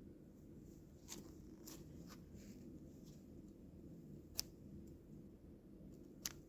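Near silence over a low steady hum, broken by a few faint clicks and two sharper clicks, about four and six seconds in.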